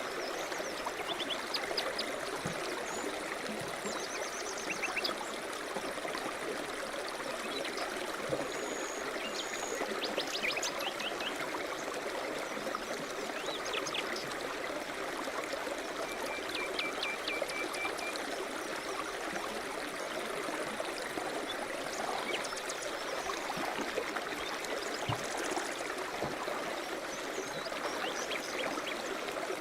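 River rapids rushing steadily, with birds chirping now and then over the water in short high calls and trills.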